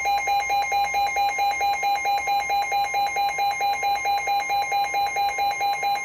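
Emergency Alert System attention signal ahead of a marine warning: a loud electronic beep pulsing about five times a second over a steady higher tone. The beeping cuts off near the end, and the steady tone carries on more quietly.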